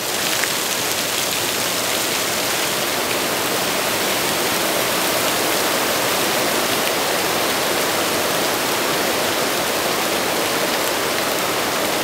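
Water falling beneath a water-powered sawmill and splashing onto rocks: a steady, continuous rush.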